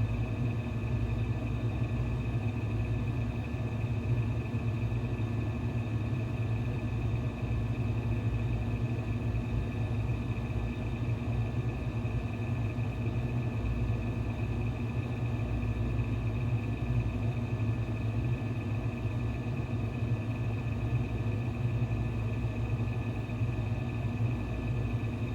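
Steady low hum with faint high whining tones above it, unchanging throughout: constant background machine or room noise.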